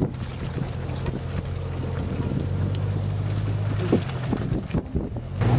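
Jeep Cherokee's 4.0-litre inline-six engine running steadily at low revs while the Jeep crawls over rutted dirt, with a few knocks late on.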